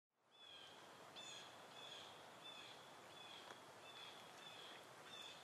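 Faint bird chirps, short slightly falling calls repeating about once every two-thirds of a second, over a steady hiss.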